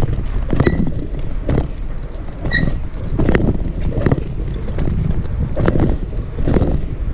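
Wind buffeting the microphone over a rough rumble, with dull knocks about once a second, as the dog bed is moved along a dirt lane.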